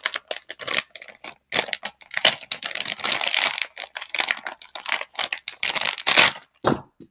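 Clear plastic packet crinkling and crackling as it is worked open by hand, with busy clicks and rustles throughout.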